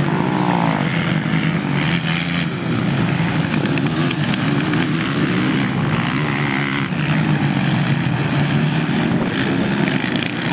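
Several sport quad bikes (ATVs) racing on a dirt track, their engines revving up and down so the pitch keeps rising and falling.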